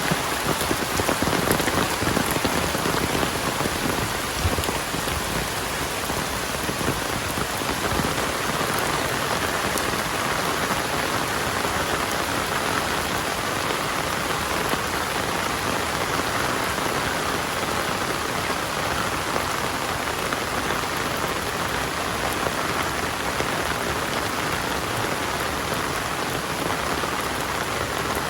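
Heavy rain falling steadily in a dense, even hiss, slightly heavier for the first few seconds.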